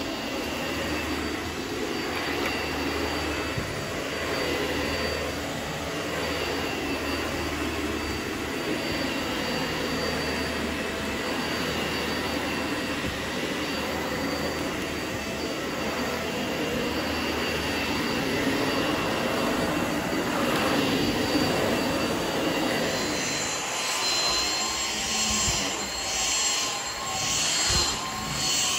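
Dyson vacuum cleaner running steadily over carpet, a steady motor whine over a rushing air noise. About 23 seconds in the whine changes to a higher tone and the sound starts to swell and fall in a regular rhythm as the cleaner head is pushed back and forth over a mat.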